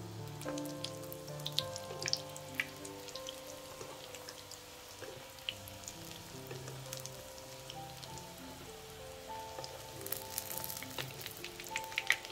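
Breaded potato pieces frying in shallow oil in a nonstick pan: a steady sizzle with crackles, and sharp clicks from a metal fork and spoon against the pan as the pieces are turned, thickest near the end. Soft background music with held notes plays underneath.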